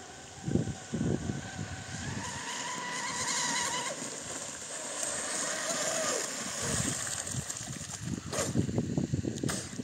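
Volantex Atomic RC speedboat's motor whining at speed, rising in pitch and then falling away. Low thumps and rumbling, mostly near the end.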